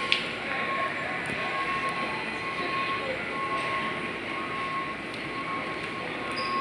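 Steady rushing background noise, like air moving in a large store, with a thin steady tone that breaks off briefly every second or so. There is one sharp click just after the start.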